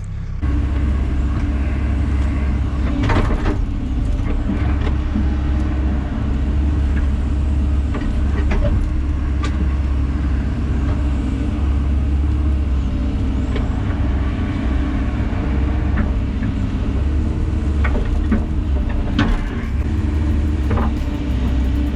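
Hyundai 140 LC-7 excavator's diesel engine running steadily under hydraulic load, with occasional metal clanks and knocks from the machine at work.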